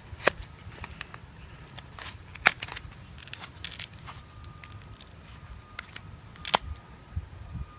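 Box knife slicing along a foam pool noodle: scattered crackling of the cut foam, with three sharp clicks spread through.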